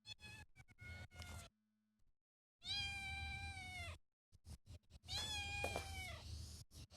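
Domestic cat meowing: a short meow in the first second and a half, then two long meows of over a second each, the second dropping in pitch as it ends, with a few short clicks in between.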